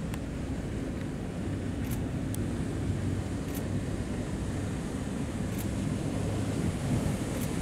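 Motorboat running at speed on open water: a steady low engine drone under the rush of water and wind on the microphone, with a few faint brief clicks.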